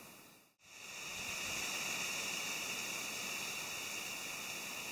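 Steady hiss of outdoor background noise, strongest in the high register. It drops out briefly about half a second in, then returns slightly louder and holds steady.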